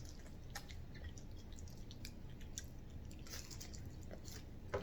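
A person chewing food, with soft wet mouth clicks and smacks scattered throughout and a brief cluster of them about three seconds in.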